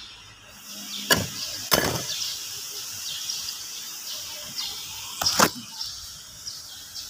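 Sharp hard knocks: one about a second in, another just after, and a clustered clatter a little past five seconds.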